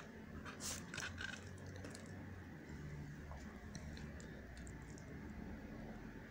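Quiet room tone with a few faint clicks and light handling noises in the first second or so, then scattered small ticks.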